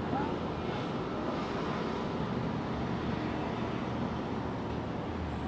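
Large passenger ferry's engines and thrusters running as it manoeuvres into its berth: a steady low rumble over a wash of city noise.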